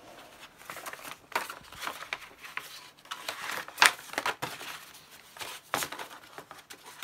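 Paper and packaging rustling and crinkling as software manuals and diskette packs are handled, in a run of short irregular rustles with one sharper crackle about four seconds in.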